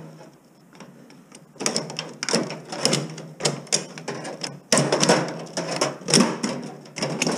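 A screwdriver and gloved hands working the fan motor loose inside a gutted microwave oven: a busy run of clicks, scrapes and rattles of metal on sheet metal and plastic, starting about a second and a half in.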